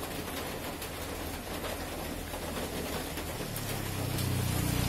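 Electric hair clippers buzzing with a steady low hum as they cut hair. The hum grows louder a little past three seconds in.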